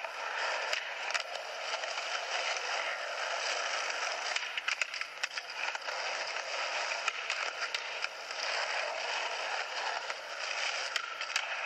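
Skateboard wheels rolling and scraping on concrete with scattered sharp clacks, played back tinny and hissy through a camcorder's small built-in speaker; the clacks come thicker from about four seconds in.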